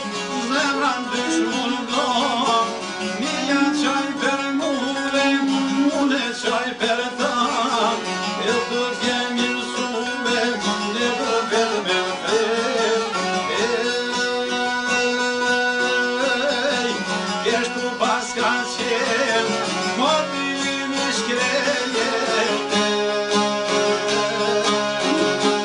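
Albanian folk song: a çifteli and a larger long-necked lute plucked in rapid, steady strumming, with a man singing over them at times.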